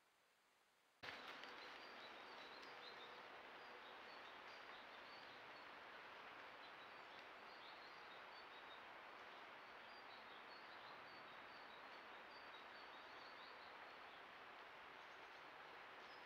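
Faint forest ambience picked up by a trail camera's microphone, starting abruptly about a second in: a steady hiss with small birds chirping faintly and often.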